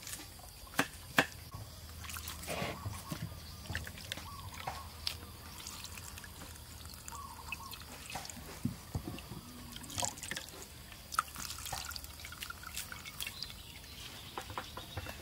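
Coconut milk being squeezed by hand from grated coconut through a plastic strainer, dripping and trickling into a glass bowl. Two sharp knife knocks on a wooden chopping board come about a second in.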